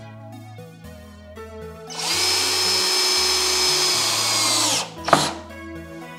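Cordless drill running at a steady full speed for about three seconds as it is pressed into a pine block, then winding down with a falling pitch. A short sharp sound follows a moment later, and background music plays underneath throughout.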